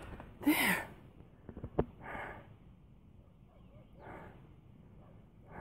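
A person breathing hard while climbing a steep trail: one loud gasping breath about half a second in, a couple of sharp knocks, then slower heavy breaths about every two seconds.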